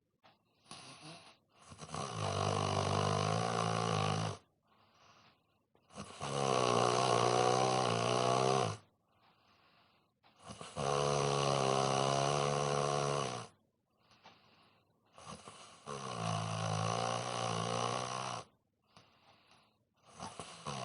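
A man snoring in deep sleep: four long snores of about three seconds each, roughly every four to five seconds, with quieter breaths between them and a fifth snore starting at the end.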